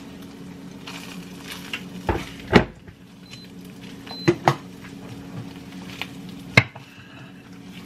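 Silicone spatula knocking and scraping against a nonstick frying pan while flipping and pressing a fried egg: several sharp knocks, the loudest about two and a half seconds in, with two quick ones near the middle and one more near the end. A low steady hum runs underneath.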